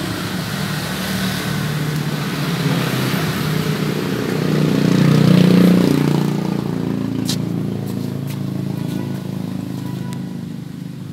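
A motor vehicle passing by, its engine noise swelling to a peak about halfway through and then fading away. A sharp click about seven seconds in.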